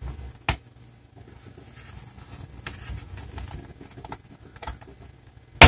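Plastic clips of a Dynabook Satellite Pro C50-H-11B laptop's bottom case snapping free as the case is pried off by hand, with faint plastic ticks and taps between. There is a sharp snap about half a second in, and a much louder snap near the end as the case comes loose.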